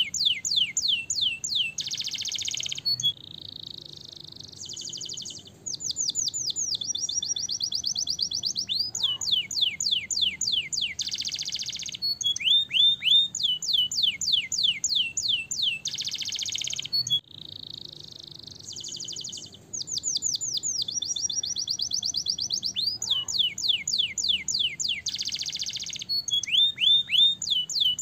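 Domestic canary singing a long, continuous song: runs of fast repeated notes sliding downward, rapid trills and short harsh buzzy rolls. The same sequence of phrases is heard twice.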